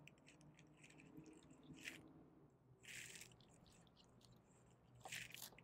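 Near silence, with three faint, brief crinkles of a clear plastic record sleeve being handled.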